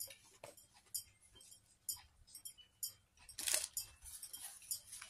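Light scattered clicks and rustles of paper food bags and wrappers being handled, with a louder burst of paper rustling about three and a half seconds in.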